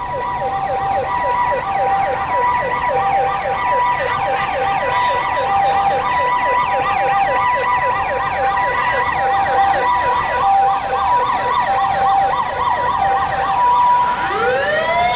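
Japanese ambulance sirens: a rapid repeating yelp over the alternating high-low two-tone call. Near the end a slower rising siren tone starts.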